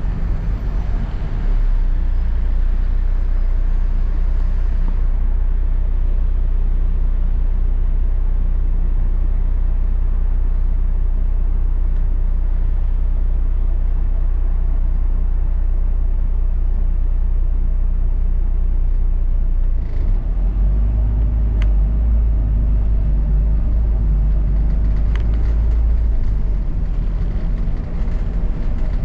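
A London bus running, heard from on board: a steady low engine and road rumble that grows heavier for several seconds about two-thirds of the way through, with a few faint clicks and rattles.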